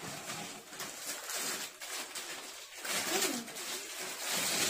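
Rustling and crinkling of gift wrap and toy packaging in several short bursts, with a brief low rising-and-falling hum from a voice about three seconds in.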